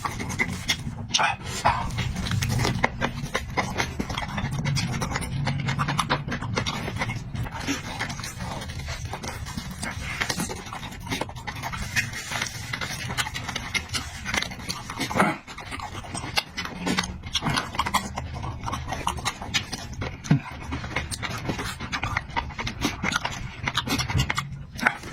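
Close-miked chewing, smacking and wet mouth noises of someone eating meat, a dense run of small clicks and squelches.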